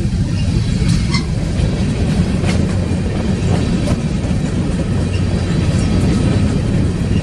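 BNSF coal train's cars rolling past on the rails: a steady, loud rumble with a few brief clicks and squeaks from the wheels.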